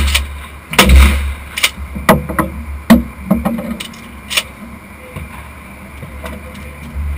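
Shotgun shot about a second in, followed by several lighter clicks and knocks and another sharp bang about three seconds in.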